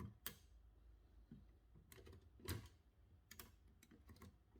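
Light mechanical clicks from a 1908 Remington No. 7 typewriter as its interline (line-spacing) selector is worked by hand: a handful of scattered clicks, the loudest about two and a half seconds in.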